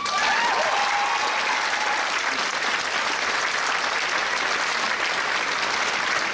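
Audience applauding steadily at the end of a dance performance, with a few cheers in the first couple of seconds.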